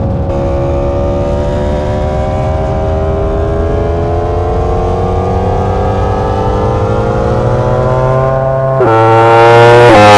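2022 Aprilia RSV4 1100's V4 engine through an SC-Project GP-22 titanium exhaust, accelerating under load with its pitch climbing slowly and steadily. About nine seconds in, the pitch drops at an upshift, and the engine gets louder and climbs faster.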